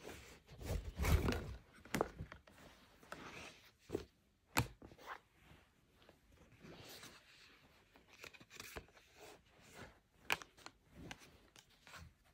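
Scattered knocks, clicks and rustling of things being handled in a small room. There is a dull thump about a second in and sharp clicks near the middle and toward the end.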